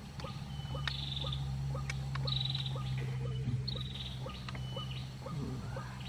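White-breasted waterhen calls: a regular run of short repeated notes, about two or three a second, with short buzzy high notes every second or so, over a steady low hum.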